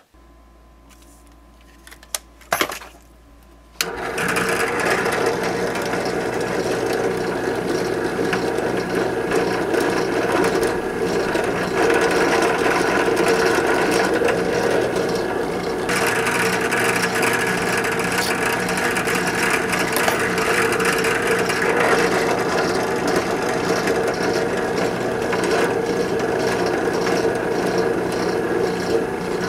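Small bench drill press switching on about four seconds in and running steadily while a fine bit drills a hole through a soft white-metal model part for a wire pin.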